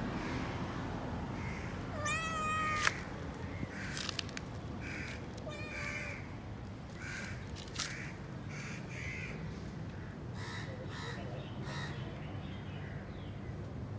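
A cat meowing: one long meow about two seconds in, with a sharp tap at its end, and a shorter meow about six seconds in. Crows caw repeatedly in the background.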